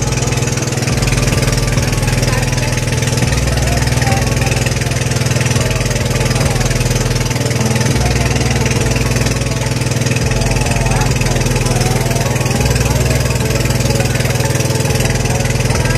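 Engine of a Filipino outrigger boat (bangka) running steadily under way, a loud, even drone with a pulsing low end.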